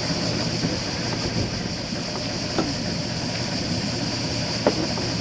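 Steady running drone of a sailing boat's engine under a steady high-pitched hiss, with a couple of faint knocks partway through.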